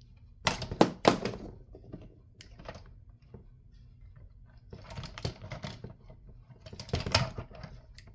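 Sharp clicks and clacks of hand clippers working at wires inside a radio chassis. There is a loud cluster about half a second in, and more bursts around the middle and near the end. The clippers are too dull to cut cleanly.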